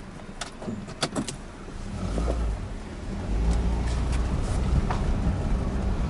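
Toyota Corolla driving, heard from inside the cabin: a few sharp clicks in the first second or so, then a low engine and road rumble that builds from about two seconds in as the car pulls away.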